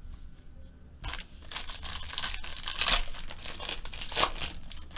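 Foil wrapper of a football trading-card pack crinkling and tearing as it is ripped open by hand, starting about a second in, with sharper crackles near the middle and end.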